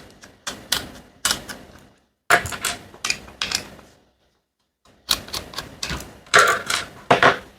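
Quick bursts of sharp clicks and clacks from small plastic and metal parts as a Jucai Pro Minicandy hair trimmer is taken apart by hand. There are three clusters, with a pause of about a second in the middle.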